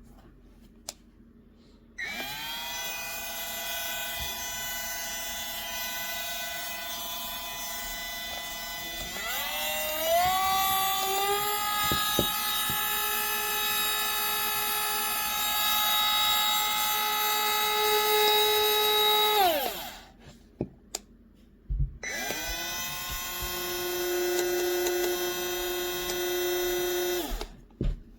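DuroFort 8V cordless rotary tool (die grinder) motor spinning up to a steady high whine, stepped up to a higher speed partway through, then switched off and winding down. It is started again a couple of seconds later, runs at the lower speed for about five seconds, and winds down again.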